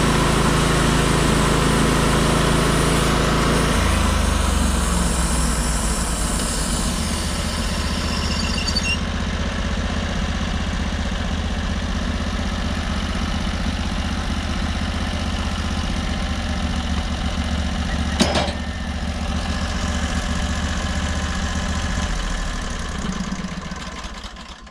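Portable sawmill's engine running steadily, dropping to a lower note about four seconds in. A high hiss stops a few seconds later, there is one sharp knock later on, and the engine winds down and stops near the end.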